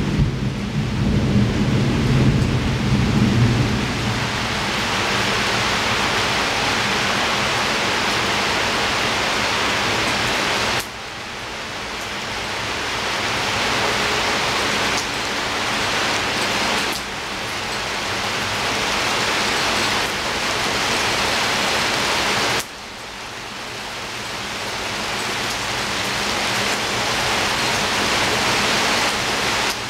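Steady heavy rain falling, with a low roll of thunder in the first few seconds. The level drops suddenly twice, about a third and three quarters of the way through, then builds slowly back up each time.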